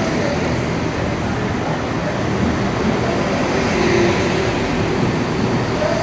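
Diesel passenger train engines running, a steady low rumble.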